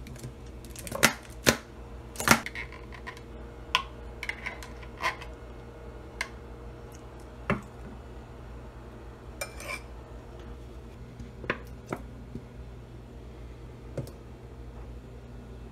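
Condiment bottles and a table knife knocking and clicking against a wooden cutting board and a small plastic bowl while mayonnaise and ketchup are squeezed out and mixed for burger sauce. The sharp taps come at irregular intervals and are loudest in the first few seconds, with a brief scrape midway, over a low steady hum.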